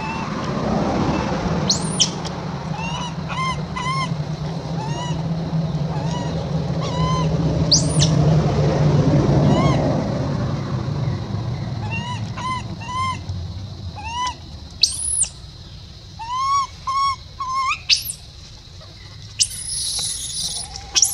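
Infant long-tailed macaque crying in short arched coos, often two or three in quick succession, with a few higher shrill squeals and a harsher screech near the end. A low steady rumble runs under the first half or so, swelling around eight to ten seconds in.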